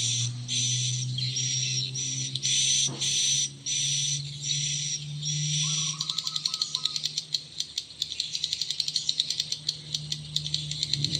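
Recorded edible-nest swiftlet roosting lure call (suara inap walet) played through a pair of horn tweeters: short high chirps repeat about twice a second, then about halfway through they give way to a fast run of clicking twitter, over a steady low hum.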